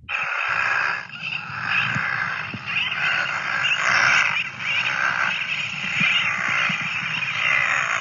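Recorded Audubon's shearwater colony calls played back as a seabird social-attraction broadcast, used to lure the birds to nest. The calls overlap and keep coming, rising and falling about once a second.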